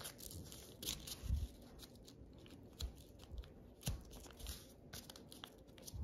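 Origami paper crinkling and rustling as it is folded and creased by hand, in scattered soft crackles.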